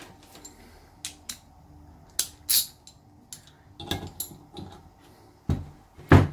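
Workbench handling noise: a Denso car alternator and metal hand tools clinking and knocking, a scatter of sharp clinks, then two heavier thumps near the end as the alternator is turned onto its side for a socket on its through-bolt.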